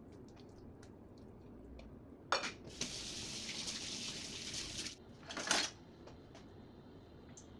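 Kitchen clatter of pots, pans and utensils: a sharp knock, about two seconds of steady hissing, then a second loud clatter, with light clicks before and after.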